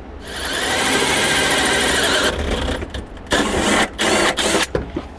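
Power drill spinning a 3/4-inch hole saw as it cuts out a pilot hole. There is one long steady run of about two seconds, then a few shorter bursts with brief gaps after a pause.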